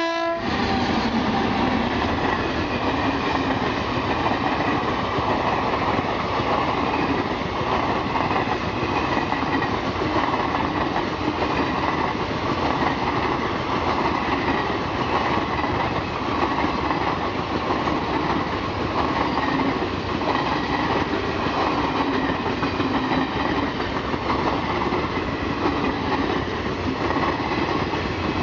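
Long rake of passenger coaches rolling past at speed: a loud, steady rush of wheels on rail with dense, uneven clatter. In the first moment, a pitched horn blast from the WAP-7 electric locomotive cuts off.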